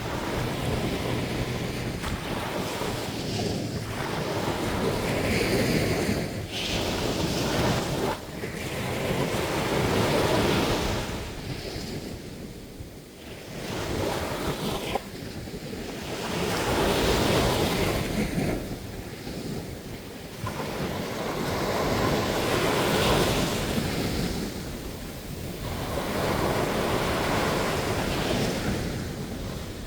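Ocean surf breaking on a beach: waves swell up and wash back again and again, a few seconds apart.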